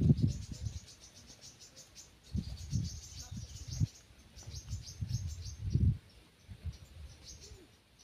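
Insects chirping in rapid, high-pitched pulses, with irregular low rumbling bumps on the microphone that are loudest at the start and recur a few times.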